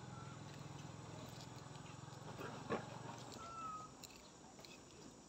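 Faint, thin high-pitched squeak from a baby macaque, a short one near the start and a longer one past halfway, over a low steady hum that stops about three seconds in, with a few light clicks.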